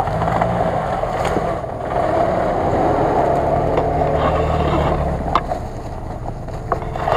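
Lada Niva's engine working under load as the 4x4 drives close past on a rough forest track, its tyres churning through leaves and mud, loudest about halfway through as it passes nearest. A few sharp cracks sound over it.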